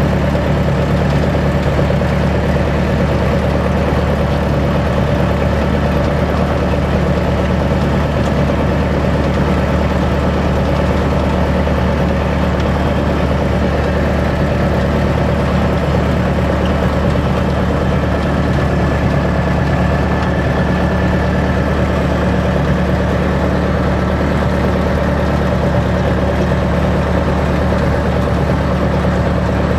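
Engine of a de Havilland Chipmunk, a four-cylinder de Havilland Gipsy Major, running steadily at an even, unchanging note, heard from inside the cockpit.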